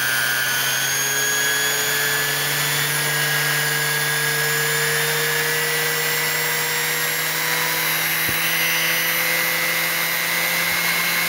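Neiko mini bench grinder's high-speed motor running with no load, its whine slowly rising in pitch as it speeds up from about 7,800 to nearly 10,000 RPM.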